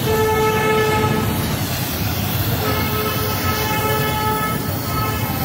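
A vehicle horn sounds two long, steady notes, the first about a second and a half, the second about two and a half seconds, over a constant rushing noise.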